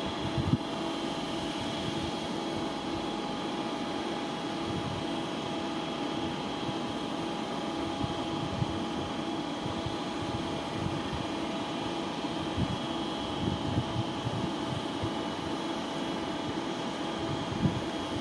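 Steady electric hum and fan noise of an electric train, several fixed tones held without change in pitch, with irregular low rumbles underneath.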